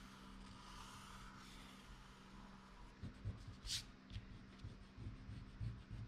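Black felt-tip marker drawing on paper, a faint scratchy rubbing. About halfway through come a few soft knocks and one short, sharp scrape as the drawing things are handled.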